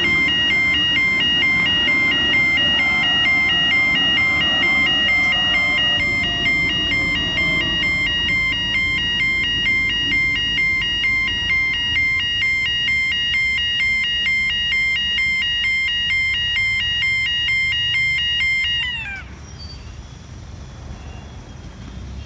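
Level crossing warning bell ringing, an electronic two-tone chime repeating steadily, over a Waratah electric train running past with a motor whine that falls in pitch and fades over the first eight seconds or so. The bell cuts off about three seconds before the end as the boom gates start to lift and the crossing clears.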